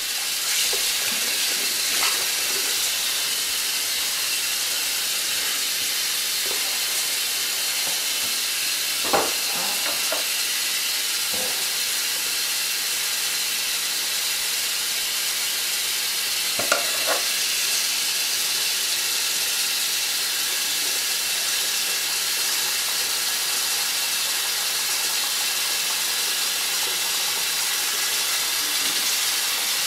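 Hot water tap running steadily into a bathroom sink, an even hiss, with a few faint knocks about nine and seventeen seconds in.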